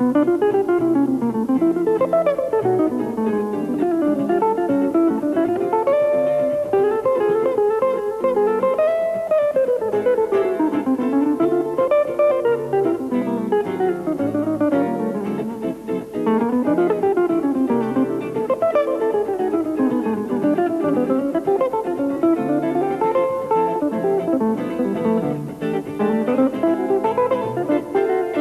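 Jazz guitar duo of electric guitars, one a Les Paul-style solid-body, playing a jazz ballad. Quick runs of single notes sweep up and down over chords, again and again.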